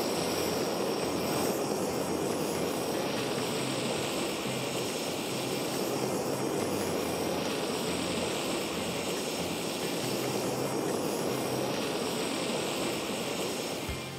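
Handheld kitchen gas blowtorch burning steadily, its flame caramelizing the sugar crust of a crème brûlée; the flame cuts off near the end.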